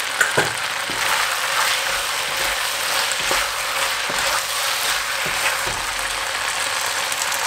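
Chicken and vegetables in sauce sizzling in a wok while being stirred and tossed with a wooden spatula, with a steady sizzle and a few scattered knocks and scrapes of the spatula against the wok.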